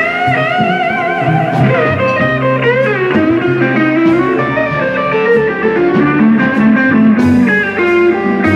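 Amplified gold-top single-cutaway electric guitar playing a blues solo. The notes are held with vibrato and bent up in pitch, over the band's backing.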